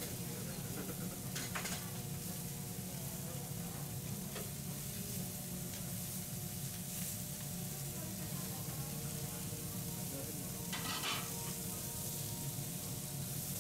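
Food sizzling on a teppanyaki iron griddle, a steady frying hiss with a low steady hum beneath it. The metal spatula scrapes or clinks briefly near the start and again near the end.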